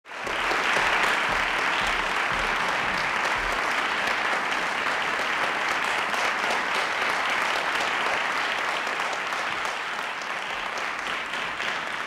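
Audience applauding steadily in a concert hall, tapering off a little near the end.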